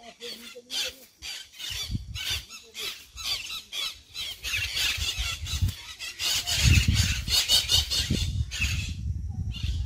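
Footsteps slogging through sticky mud, with many short, high squeaks and squeals about three times a second. A low rumble grows louder in the second half.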